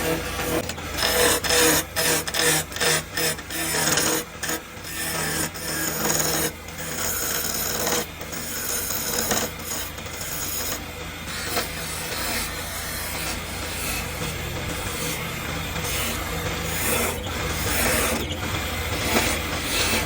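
Wood lathe turning a thick wood blank, with a turning tool scraping and cutting the spinning wood. The cutting noise is choppy and broken by brief gaps for the first half, then runs more steadily.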